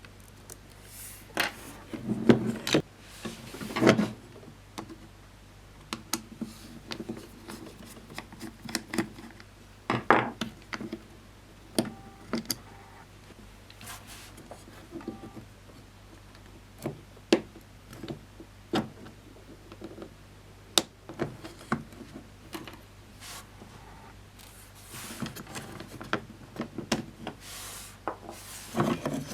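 Scattered clicks, knocks and rubbing of plastic and metal parts being handled and worked with hand tools while a Jura Z5 espresso machine is taken apart.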